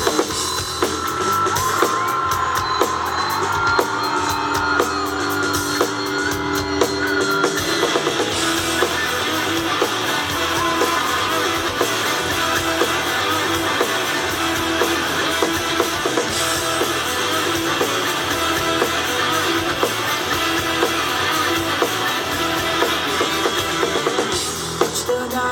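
Live rock band playing: drum kit and electric guitar, with long held notes at first and a fuller, denser sound from about eight seconds in.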